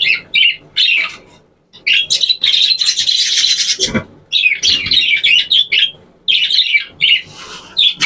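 A flock of budgerigars chirping and chattering in a wire cage, in quick bursts that run together into a dense chatter about two to four seconds in.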